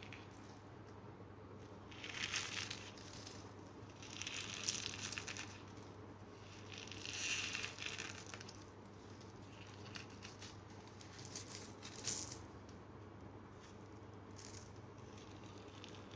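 Cornstarch crumbles being squeezed and crushed, giving squeaky, crunchy crackling in a series of bursts of a second or two each, with short pauses between them.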